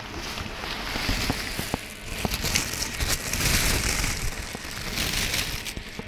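Plastic bag and packaging crinkling and rustling unevenly, with scattered clicks, as a mirror ball is unwrapped by hand.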